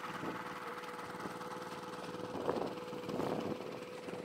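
Small engine-driven water pump running steadily with an even hum, pumping water out of a pond.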